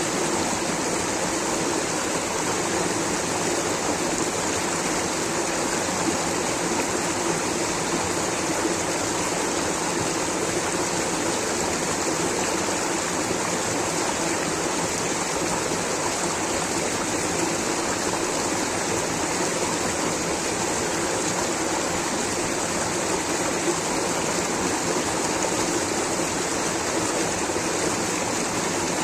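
Rushing water running steadily, a continuous even wash of sound with no breaks or changes.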